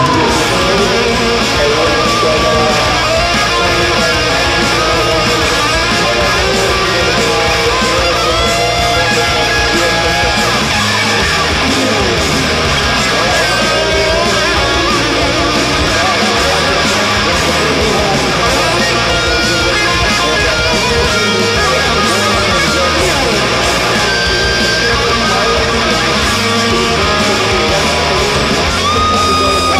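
Loud guitar-driven rock music, steady throughout, with electric guitar to the fore.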